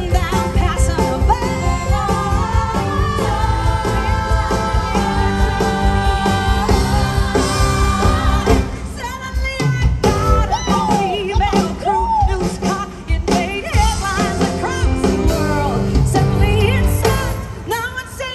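A woman singing a musical-theatre number with a live band. She holds long notes through the first half. After a brief dip a little past halfway, the singing returns with swooping pitch.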